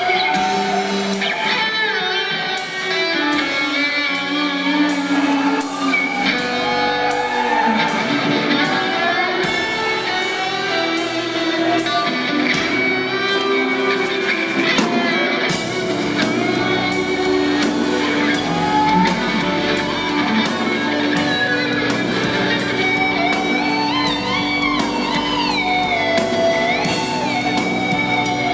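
Live heavy rock band playing an instrumental passage: double-neck electric guitar over a steady drum beat, heard from the audience in a hall. Near the end the lead guitar bends notes up and down.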